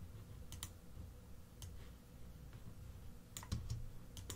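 Faint computer mouse clicks, a handful of them, some in quick pairs.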